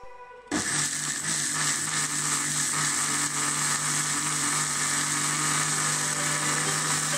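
Panasonic 1000 W mixer grinder switched on about half a second in and running steadily, grinding ginger, garlic and onion into a paste.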